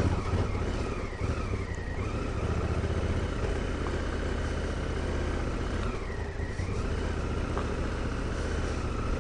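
Honda Africa Twin CRF1000L's parallel-twin engine running at low trail speed. The engine note dips and comes back up twice.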